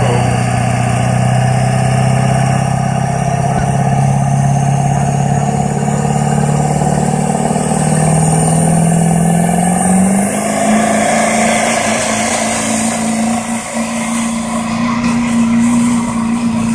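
Diesel pickup truck engine running hard under full load while pulling a weight-transfer sled, its note climbing in steps about halfway through, with a high whistle rising in pitch above it.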